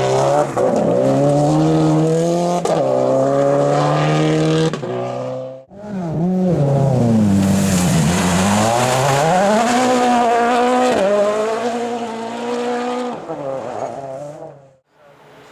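Rally cars at full throttle. In the first part an engine accelerates hard, its pitch climbing and dropping back at each gear change. After a sudden break, another car's engine note falls as it slows, then rises again as it accelerates away.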